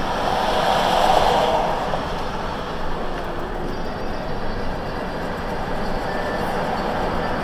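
Steady road and engine noise of a vehicle driving at highway speed, heard from inside the cabin. It swells briefly about a second in.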